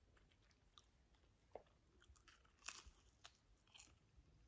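Faint chewing of crispy breaded nuggets: a few soft, scattered crunches with near silence between them.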